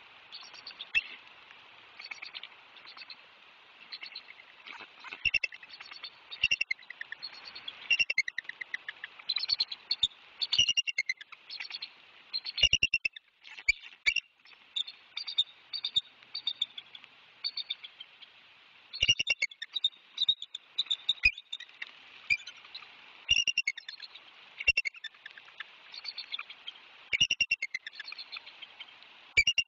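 Bald eagles calling: repeated bursts of rapid, high chattering whistles over a steady hiss of rain, with scattered sharp taps.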